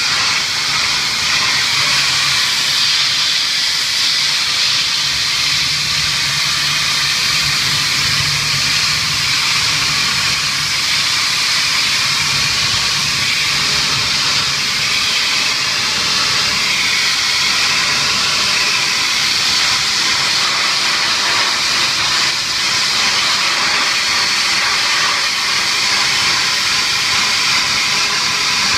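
Pressure washer spraying a high-pressure water jet onto stainless steel kitchen equipment, blasting off a coat of grease: a loud, steady hiss.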